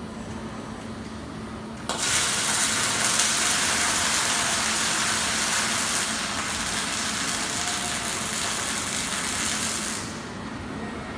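Robotic MIG/MAG welding arc from a Motoman torch fed by a Fronius TPS 4000 power source: it strikes suddenly about two seconds in, runs as a loud steady hiss for about eight seconds, then cuts off.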